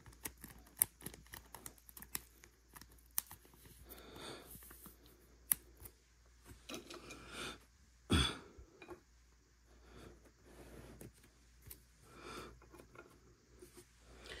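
Trading cards being handled and set into a plastic display stand: scattered light clicks, taps and soft rustles, with one louder knock about eight seconds in.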